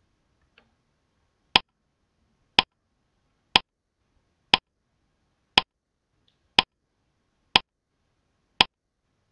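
Countdown timer sound effect ticking: a sharp, identical tick once a second, eight ticks starting about one and a half seconds in.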